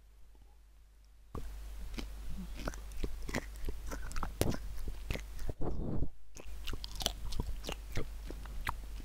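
Hot chili pepper being bitten and chewed, close to a headset boom microphone: wet crunching and mouth clicks that start about a second and a half in.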